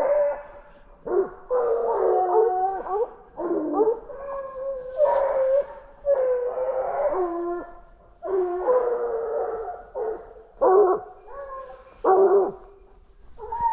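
A pack of hunting hounds baying, several voices overlapping in drawn-out cries with short gaps. They are giving voice on wild boar that have been roused and are running.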